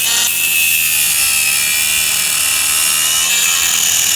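A high-speed power tool running at a steady high-pitched whine, cutting into a plastic Stihl Elastostart starter-rope handle clamped in a vise.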